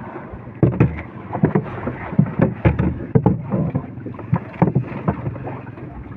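A freshly caught fish being clubbed in the bottom of a small wooden boat: a string of irregular dull knocks and thuds, some in quick pairs. Wind and water hiss run underneath.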